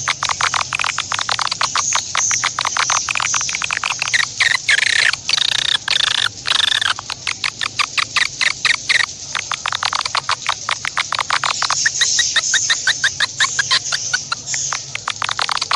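Animal calls: a fast, continuous train of sharp clicking, chattering pulses, with some higher chirping stretches mixed in.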